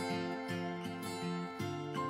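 Background instrumental music: a plucked-string melody with notes following one another every few tenths of a second.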